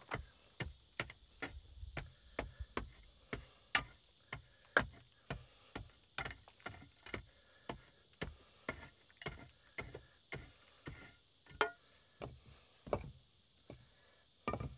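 Rapid, evenly paced sharp strikes, about two to three a second with a few harder blows, working to bring a high-set floor stone down level with its neighbours.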